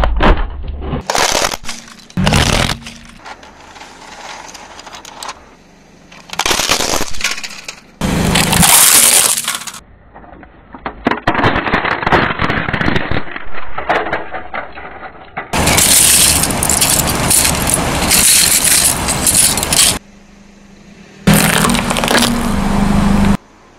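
Car tyre rolling over and crushing plastic toy trucks, then a carrot: a string of separate loud cracking and crunching bursts, some brief snaps and some lasting a few seconds, with quieter gaps between them.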